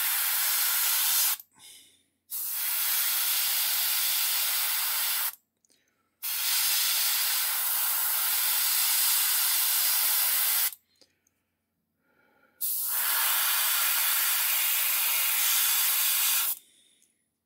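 Airbrush spraying primer in four bursts of steady hiss, each a few seconds long, with short silent gaps as the trigger is released.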